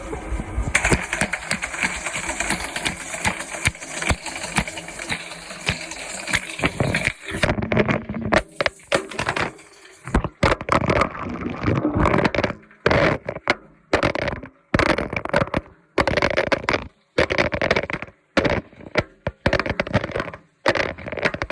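A phone in a rugged case tumbling in a washing machine drum: dense clattering and knocking, which breaks off abruptly into short bursts with sudden silences in the second half.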